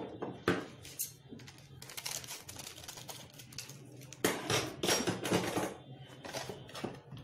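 Hands handling a cardboard spice box and its packet: a few light clicks, then about a second and a half of rustling and knocking a little after the middle, over a steady low hum.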